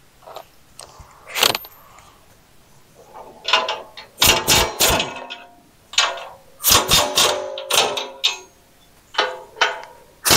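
Corded electric impact wrench run in several short bursts, each with a sharp rattling start and a ringing tone, loosening the blade bolts on a land plane.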